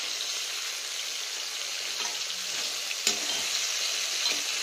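Raw crab pieces sizzling in hot oil in a kadai as a spatula mixes them through the onion and ginger-garlic masala, with a sharp clack against the pan about three seconds in.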